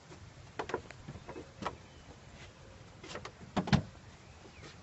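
A few short rustles and knocks from leafy garden plants brushing against the recording phone as it is pushed through the foliage; the loudest comes about three and a half seconds in.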